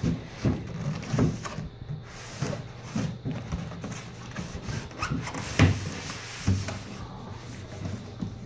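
Irregular bumps, knocks and rustling of a PC case's cardboard box and packing being handled and opened, with one louder knock a little past the middle.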